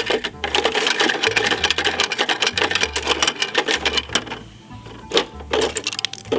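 Rapid plastic clicking and rattling from a toy recycling truck's rear bin lifter and the small plastic bin it tips, dense for about four seconds, then a few single clicks. Background music with a repeating bass line runs underneath.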